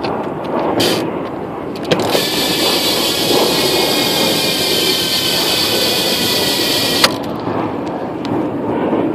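Colony Wasp cassette rear hub on a BMX freewheeling: a fast, continuous ratcheting buzz from its pawls, loud and high. It starts abruptly about two seconds in and cuts off abruptly about two seconds before the end, with rougher handling noise and a few clicks around it.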